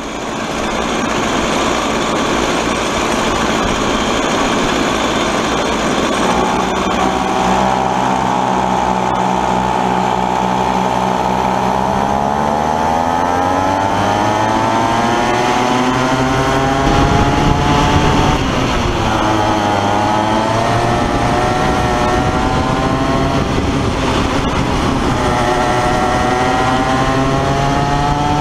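Comer C-50 two-stroke kid kart engine running at race pace, its note climbing as the kart accelerates, dipping twice where it lifts off for corners and climbing again. For the first several seconds the sound is a rough, unpitched rumble before the steady engine note takes over.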